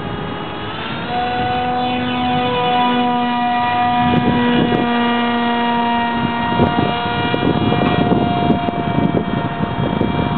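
Small propeller aircraft engine running at high revs. Its pitch rises over the first second, then holds steady with a slight downward drift, with wind buffeting the microphone.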